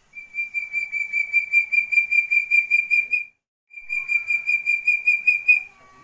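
A young Javan partridge (puyuh gonggong) calling: a fast run of clear whistled notes, about six a second, their pitch creeping up. The run breaks off after about three seconds and starts again for two more.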